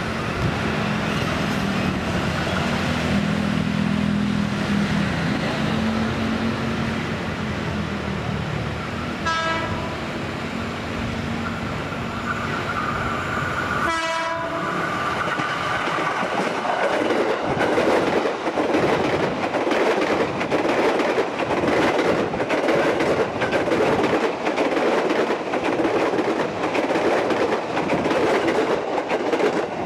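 JR 205 series electric commuter trains running on the line, at first approaching with a steady hum, then passing close by with loud rapid wheel clatter over the rail joints through the second half. A brief horn note sounds a little before the middle.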